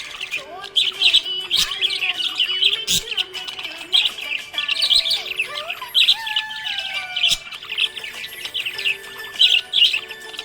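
Budgerigar chirping rapidly and without a break, a dense run of short high chirps with a few sliding whistles mixed in.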